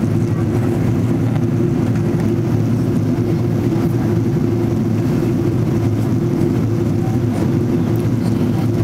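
Steady cabin noise inside a Boeing 777-200ER airliner in descent: a low, even rush of airflow and engine noise heard from a seat by the wing.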